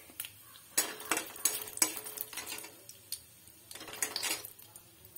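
Slotted metal spatula scraping and clinking against a metal kadai, stirring whole spices in a little hot oil, in a run of separate short strokes.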